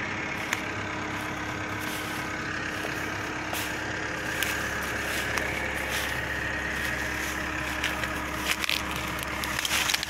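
Diesel engine of a Komatsu tracked forest harvester idling steadily. Twigs and brush crackle underfoot a few times near the end.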